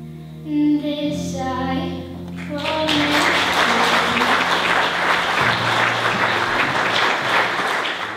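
Music with a singing voice, giving way about two and a half seconds in to loud, sustained applause from an audience, with low notes of the music still heard under the clapping for a while.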